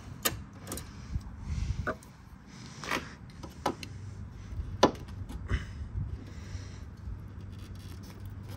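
Big pliers clicking and clanking on a steel transmission cooler line bracket as it is gripped and bent up: a series of sharp metal clicks and knocks, the loudest about five seconds in.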